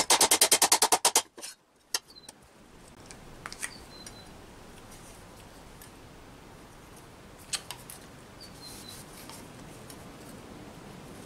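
A rapid run of about a dozen light hammer blows on a 16-gauge steel tube held over an anvil horn, about ten a second and lasting just over a second, followed by a single knock and the quieter handling of the metal.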